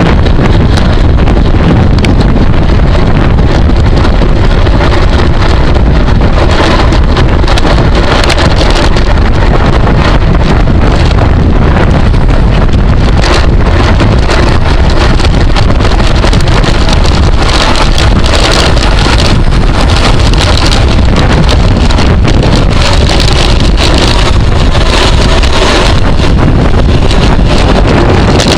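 Heavy wind noise buffeting the microphone of a camera riding along in a bicycle race, loud and steady, with no speech.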